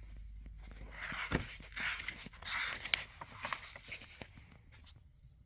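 Paper rustling with a few soft clicks as a book page is turned.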